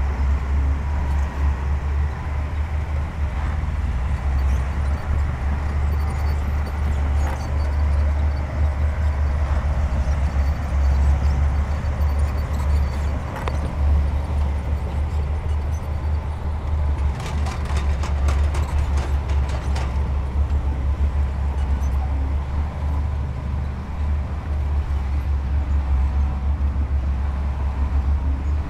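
Diesel engine of heavy earthmoving equipment running steadily with a deep, continuous rumble. About seventeen seconds in, a quick run of rattling clicks lasts some three seconds.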